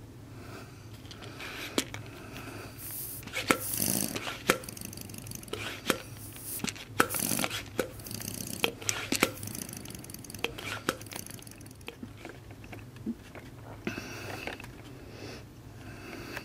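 Small model twin-cylinder double-acting steam engine running slowly on compressed air: irregular clicks and knocks from its moving parts, with a few short hisses of air, over a steady low hum.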